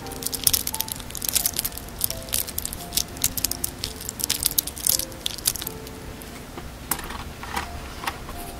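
Pearl drop earrings handled close to the microphone: quick, crisp clicks and crackles of beads and metal hooks between the fingers, thinning out after about five seconds, with a few louder clicks near the end. Soft background music with single held notes plays under it.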